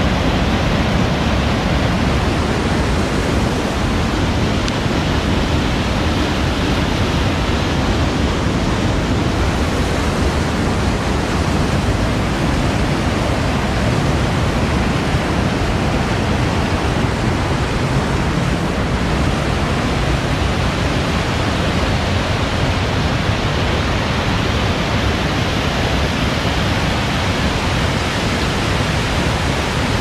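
Loud, steady rush of white water pouring down a steep concrete channel at a small hydro plant, churning and foaming without a break.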